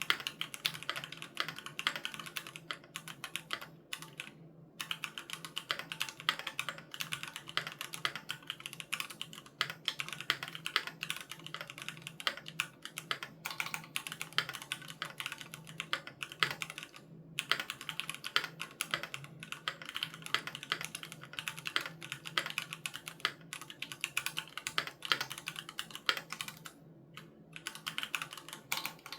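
Continuous typing on a Keychron Q3 Knob mechanical keyboard with Gateron G Pro Red linear switches: rapid key clicks, with brief pauses about four seconds in, at about seventeen seconds and near the end.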